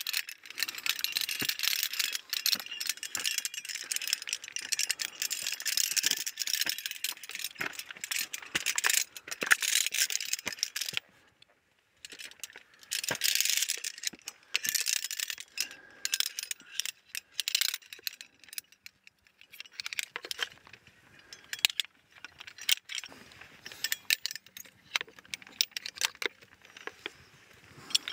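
Steel carabiners on a climbing lanyard clinking and scraping against a fixed iron chain on a rock face as they are clipped and slid along it. Dense metallic jangling for about the first eleven seconds, a brief pause, then scattered clinks and rattles.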